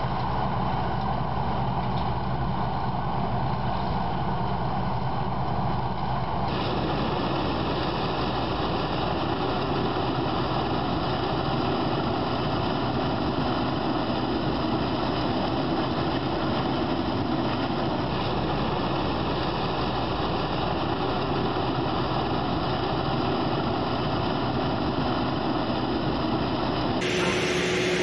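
Large tracked farm tractor's diesel engine running steadily while pulling an air seeder, a continuous drone with a steady whine over it. The tone changes abruptly about six seconds in and again just before the end.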